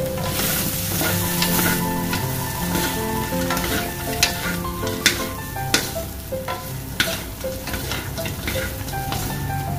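Fried chicken wings being tossed in a hot metal wok with two wooden spatulas: steady sizzling with scraping, and a few sharp knocks of the wood against the pan around the middle.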